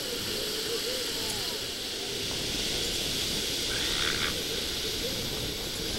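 Northern elephant seal cows and pups calling on the beach, a string of short wavering croaks with a brief higher call about four seconds in, over steady wind and surf noise.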